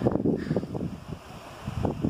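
Wind buffeting the camera microphone: a low, gusty noise that swells and falls.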